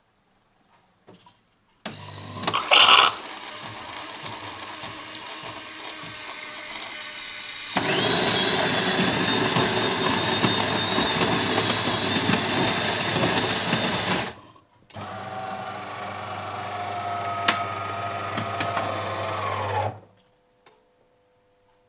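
De'Longhi Eletta Explore bean-to-cup coffee machine running through a cycle. A loud mechanical run starts about two seconds in, grows louder with a high whine about eight seconds in, and stops about fourteen seconds in. After a short break a second run with a low hum lasts about five seconds.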